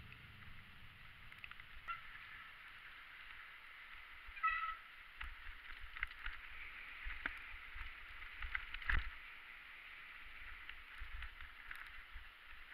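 Ride noise from a camera on a mountain bike going down a snowy forest trail: a steady hiss of wind and tyres on snow, with knocks and rattles of the bike over bumps, the loudest about nine seconds in. A couple of brief high squeaks sound about two and four and a half seconds in.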